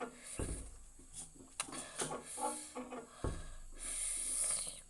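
A person breathing hard through the mouth to ease the burn of ghost-pepper chilli, with small mouth clicks and two low thumps. A long hissing breath comes near the end.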